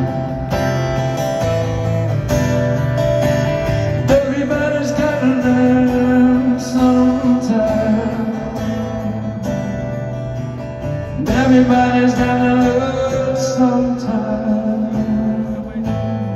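Live band music from a festival stage, heard from the crowd: a slow passage with guitar over sustained chords and no lyrics sung.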